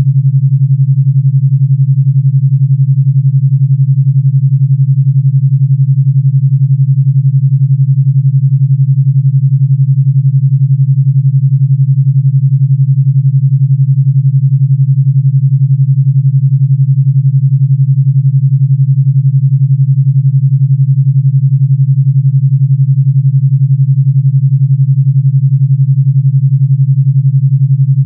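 Synthesised pure low tone at about 141 Hz, held steady with a fast, even pulse: an 11 Hz alpha-wave beat frequency.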